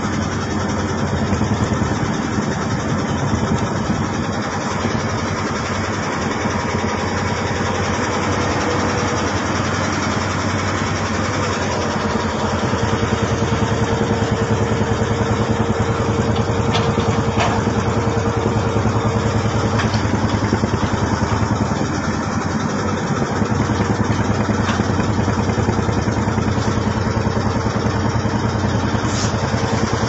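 A pompong motorboat's inboard engine runs steadily at cruising speed, with a fast, even beat.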